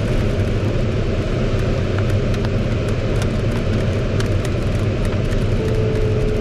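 Airflow rushing over a glider's canopy, heard inside the cockpit as a steady rush with a low rumble, with scattered faint ticks of raindrops striking the canopy. A steady single tone comes in near the end.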